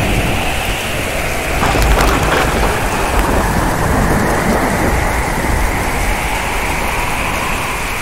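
Steady heavy rain hissing, with low thunder rumbling and swelling about two seconds in.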